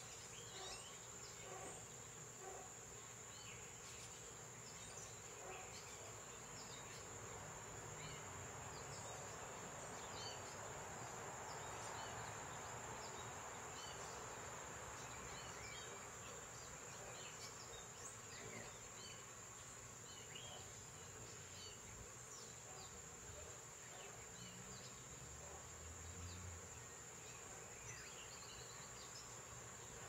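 Faint, steady, high-pitched drone of insects, like crickets, with many short faint chirps scattered through it.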